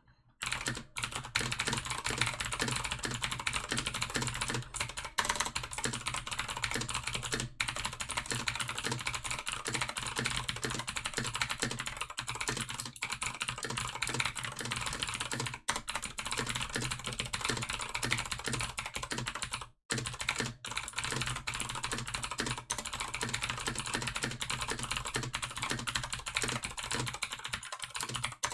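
Fast, continuous typing on a Razer BlackWidow V3 TKL mechanical keyboard with clicky Razer Green switches, a dense stream of sharp key clicks. It starts about half a second in and breaks off briefly twice, around 16 and 20 seconds in.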